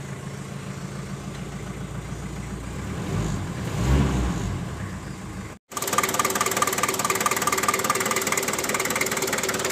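Daihatsu Taft Hiline 4x4's diesel engine idling. It is first heard from inside the cabin as a steady hum. After a sudden cut it is heard close up in the open engine bay, louder, with a regular diesel clatter.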